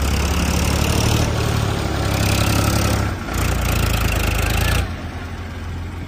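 Heavy diesel engine running hard, with a brief dip in level about three seconds in. It drops suddenly to a quieter running note near the end.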